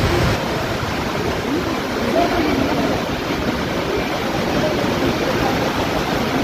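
Heavy rain falling, a steady, even hiss.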